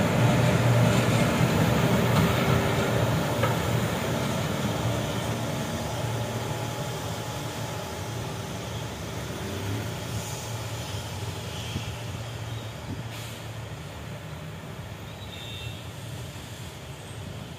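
Three WAG-7 electric banking locomotives at the tail of a passenger train run past and draw away, a low steady hum over a rolling rumble that fades gradually as they recede.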